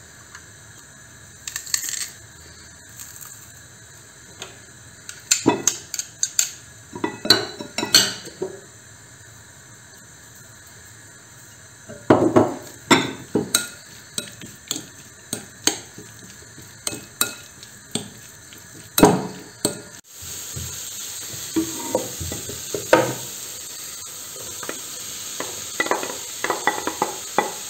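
Metal utensils clicking and knocking against a glass bowl as garlic is pressed and spiced raw chicken is stirred. About two-thirds through, a steady sizzle starts: onions frying in a pan, with knocks as diced peppers are tipped in and stirred.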